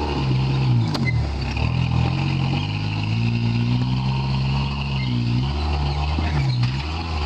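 Jeep Wrangler engine working under load as it crawls up rocky ledges, revving up and down in throttle bursts, its pitch rising and falling several times.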